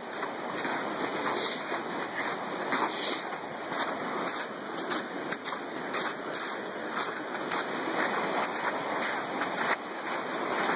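Footsteps in wet, slushy snow, a soft crunch about every half second to second, over a steady hiss.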